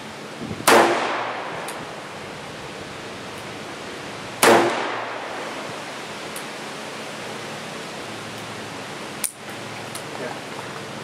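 Smith & Wesson 686 .357 Magnum revolver fired twice, about four seconds apart, each shot dying away over about a second.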